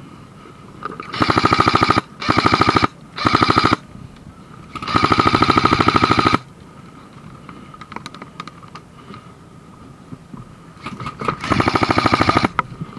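Airsoft rifle firing on full auto in five bursts of rapid, evenly spaced shots, the longest about a second and a half in the middle, with quieter scattered shots between them.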